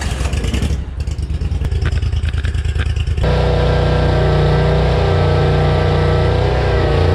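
Bad Boy zero-turn mower engine just after starting, running unevenly at first; about three seconds in it changes abruptly to a steady, louder run at higher speed as the mower drives.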